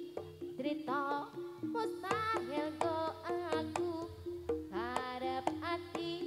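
Live jaranan music from a gamelan-style ensemble: drum strokes and steady, repeated pitched notes, with a melody that slides and bends in pitch above them, strongest from about two seconds in.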